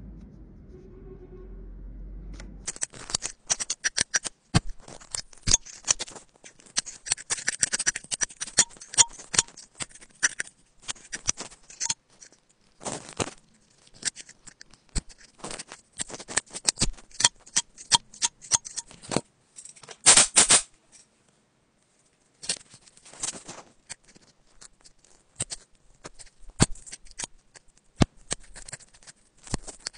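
Thin metal pick scratching and scraping packed lint and grit out of an iPhone's Lightning charging port, in a dense run of close, sharp clicks and scrapes after a low hum in the first two seconds, with a brief pause about two-thirds of the way through.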